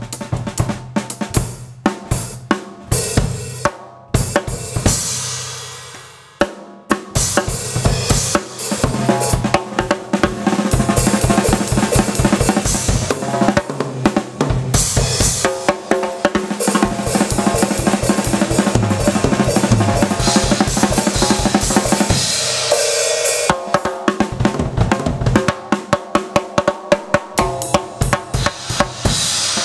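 Acoustic drum kit played solo: fast, dense strokes across snare, toms and bass drum with cymbal crashes. A sparser, ringing opening gives way to a long unbroken run of rapid strokes, which briefly lets up after about twenty seconds before the fast playing resumes.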